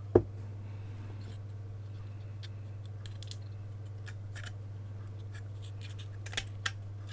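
A metal shield being worked loose and slid off a soundbar's circuit board: a loud knock just after the start, then light scrapes and clicks of thin sheet metal against the board, with two sharp clicks near the end. A steady low hum runs underneath.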